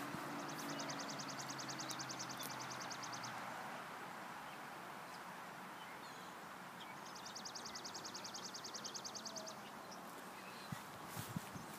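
A bird's rapid, evenly pulsed trill, given twice, each lasting two to three seconds, over steady outdoor background noise. A few footsteps come near the end.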